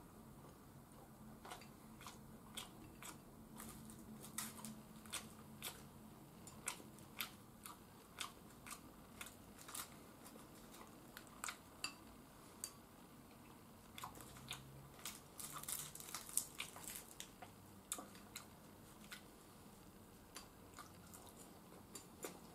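Quiet eating sounds: chopsticks clicking against a ceramic rice bowl and mouth sounds of chewing, many small sharp clicks scattered irregularly, busiest about two-thirds of the way through.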